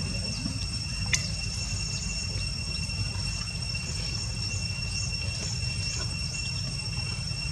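Steady high-pitched drone of insects calling in the grass, over a constant low rumble. There is a sharp click about a second in, and in the second half faint short falling chirps repeat about twice a second.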